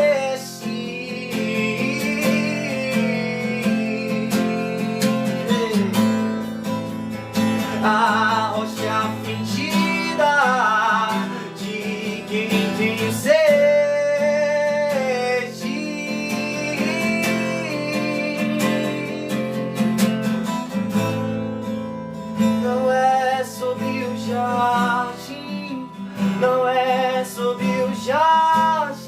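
Acoustic guitar music, strummed and picked, with a voice singing a wavering melody over it.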